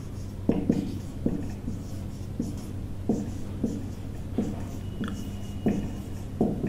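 Marker pen writing on a whiteboard: short scratchy strokes, about two a second, as letters are drawn. A steady low hum sits underneath.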